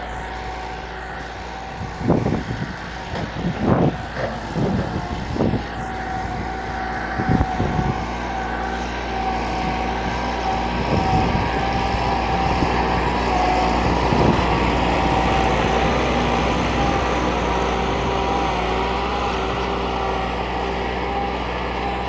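Massey Ferguson 375 tractor's four-cylinder diesel engine running steadily under load while pulling a spring-tine cultivator through dry soil. It grows louder as it draws near, with a few dull thumps over the first several seconds.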